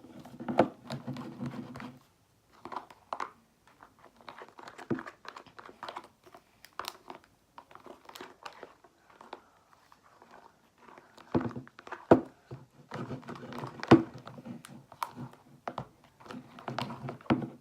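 Glue and shaving cream being stirred together in a bowl for fluffy slime: irregular wet squishing and scraping, broken by sharp clicks.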